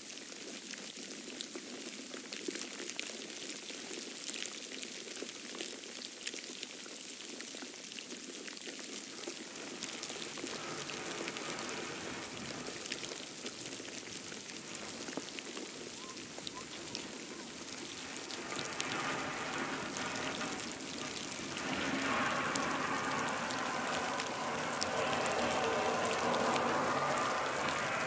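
Falling wet snow pattering: a steady hiss full of fine ticks. A louder, fuller rushing grows from about ten seconds in and is strongest near the end.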